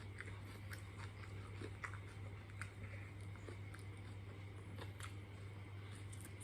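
Faint chewing of food, with scattered small clicks and crunches, over a steady low hum.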